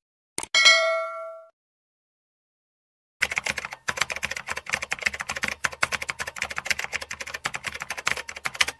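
A click and a bright bell ding, the subscribe-bell notification sound effect, about half a second in, ringing out for about a second. From about three seconds in, rapid keyboard typing clicks, a typing sound effect, run on steadily.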